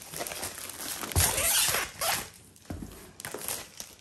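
Cellophane wrapping being pulled off a cardboard jigsaw puzzle box and crumpled in the hands, a crackling rustle that is loudest for about a second, starting just over a second in.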